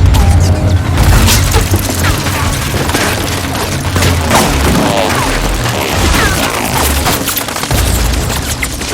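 Action-film soundtrack mix: loud dramatic score with deep booms and a rapid string of crashes and impacts, easing off near the end.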